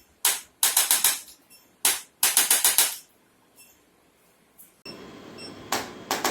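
Short runs of quick, sharp clicking taps, several a second, coming in bursts under a second long. After a pause of a couple of seconds, a steady background hiss sets in and one more run of clicks comes near the end.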